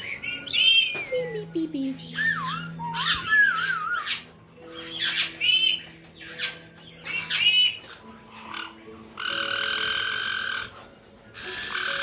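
Caique parrot calls: a run of short squeaky chirps and warbling whistled glides, then two long harsh screeches of a second or more each in the last few seconds.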